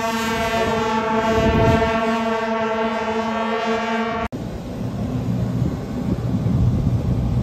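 A band of long brass shaojiao horns blown together on one steady held note, cut off suddenly about four seconds in. A low, uneven rumble follows.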